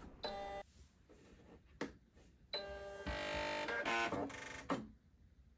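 Singer Quantum Stylist 9960 computerized sewing machine switching on and booting up: a short electronic beep, a click, then a longer electronic chime that steps through a few pitches, ending in a click.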